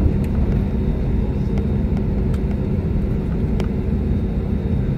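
Jet airliner's turbofan engines running while the plane taxis, heard inside the cabin: a steady low rumble with a faint hum, and a few light clicks.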